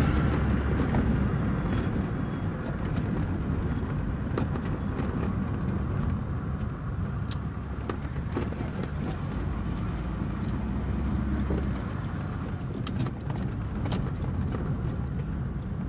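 Fiat Tempra station wagon being driven, heard from inside the cabin: a steady low engine and road rumble.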